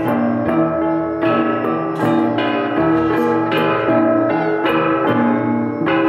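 Instrumental music: sustained pitched notes struck afresh about twice a second in a steady pulse.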